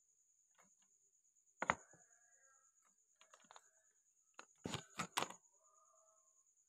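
Handling noise close to the microphone: scattered clicks and light knocks, a sharp one about two seconds in, a few small ones after, and a louder cluster of knocks near the end. A faint steady high tone runs underneath.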